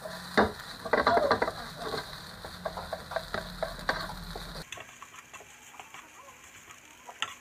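Wooden spatula knocking and scraping against a nonstick frying pan as rice is broken up and stir-fried, in a series of irregular taps.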